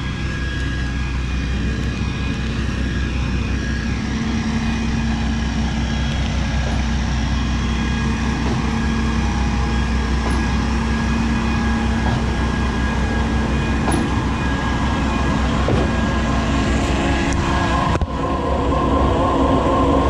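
Skid steer engine running steadily under load, driving the hydraulics of a Mud Demon concrete line pump, with a steady whine over the engine noise. The sound changes abruptly about two seconds before the end.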